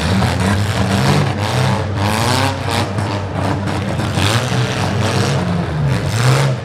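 Six-cylinder demolition derby car engines revving, their pitch rising and falling again and again.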